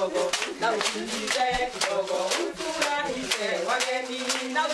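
A group singing together with hand clapping kept in a steady rhythm.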